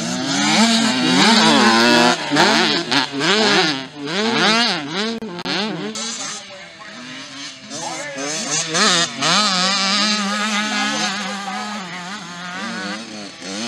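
Small two-stroke youth motocross bikes (65 cc class) revving hard, their engine note climbing and dropping again and again as the throttle is opened and shut; a single bike holds a steadier note for a few seconds near the end.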